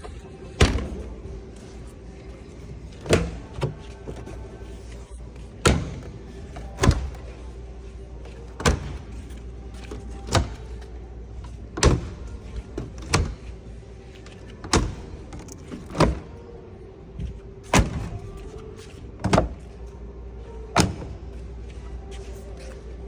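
A series of sharp knocks or slams, about one every second and a half, sometimes two close together, over a steady low hum.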